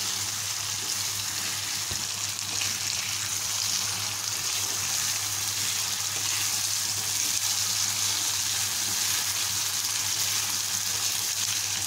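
Spice and onion paste frying in oil in a pan, a steady sizzle as a spatula stirs it; the masala is almost fully fried, with the oil separating out.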